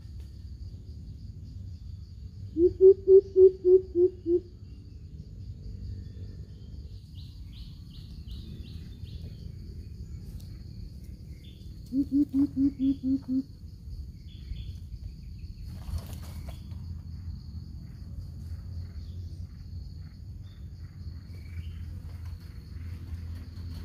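Greater coucal giving two runs of deep, evenly spaced hoots: about seven a couple of seconds in, then a slightly lower run of about six near the middle. A steady high insect drone runs underneath.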